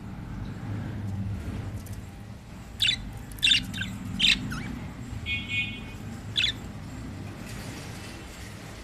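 Yellow budgerigars calling: a run of about five short, sharp squawks starting about three seconds in, with a brief buzzy chatter in the middle, over a low steady background rumble.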